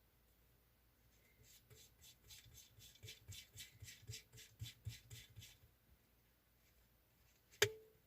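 Faint quick ticking, about four ticks a second for a few seconds, then one sharper click near the end.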